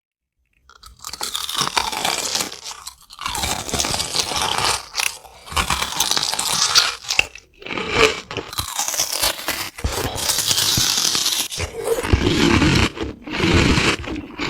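Close-miked crunching and chewing of crisp food, the loud crackle of bites coming in runs with short pauses between them, after a brief silence at the start.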